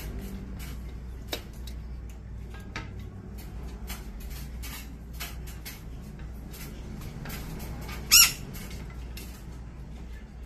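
White-bellied caique giving one short, loud squawk about eight seconds in. Light clicks and scratches come and go.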